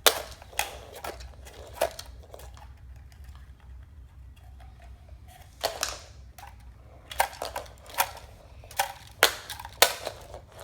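Toys being handled and knocked together, giving a dozen or so sharp, irregular clicks and clacks with a quieter stretch in the first half.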